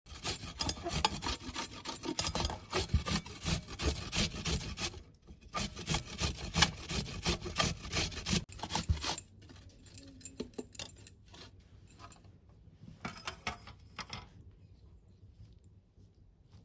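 Rapid repeated rasping, scraping strokes, dense and steady for about nine seconds with a brief pause near the fifth second, then sparser and fainter.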